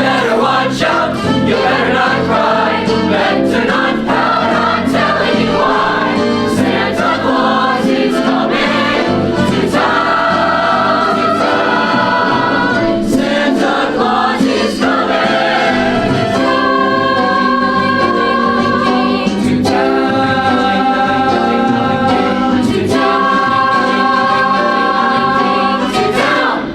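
High school mixed choir singing in harmony, with long held chords in the second half.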